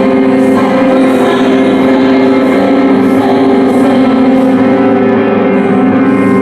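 Loud, dense drone music: many sustained tones layered together and held steady, shifting only slowly.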